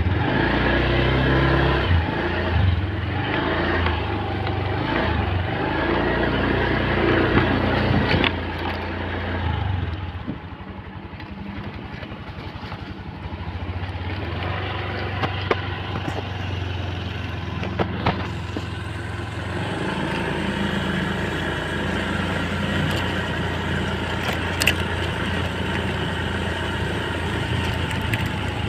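Honda fuel-injected motorcycle engine catching right at the start, running loud and uneven for about ten seconds, then settling to a steady idle.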